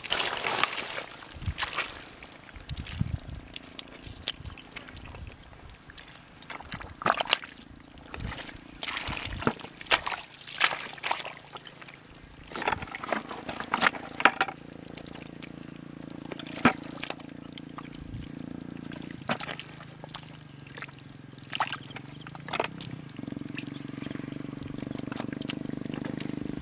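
Hands and bare feet working through wet, soupy mud: irregular squelches, splats and sloshes as the mud is groped and stirred. A low steady hum comes in about halfway through and grows louder toward the end.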